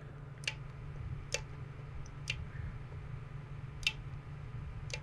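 Ratchet wrench clicking one notch at a time, five separate clicks about a second apart, as short strokes tighten a new oil filter on a motorcycle engine. A steady low hum runs underneath.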